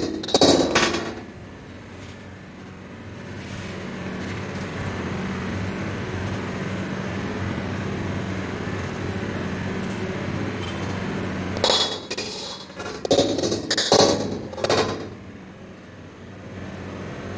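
Metal ladle knocking and clattering against a plastic takeaway container as noodles are packed into it: a few sharp knocks at the start and a quick run of them a few seconds before the end. A steady low hum runs underneath.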